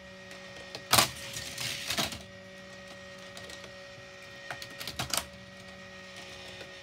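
Hot Wheels Volcano Escape playset's battery motor humming steadily, with plastic clacks and rattles of die-cast toy cars on the plastic track. A loud clack comes about a second in, followed by about a second of rattling, and a cluster of clicks comes about five seconds in.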